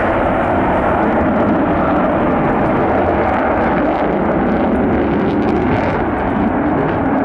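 Jet fighter's engines running at high power as it manoeuvres overhead: a loud, steady rushing roar.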